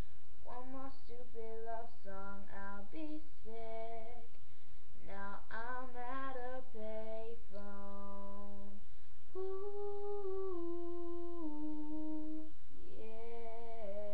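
A female voice singing solo, with long held notes that step down in pitch and no instruments heard, over a steady low hum.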